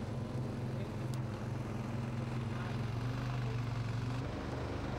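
A heavy engine running steadily with a low, even hum; its note shifts slightly about four seconds in.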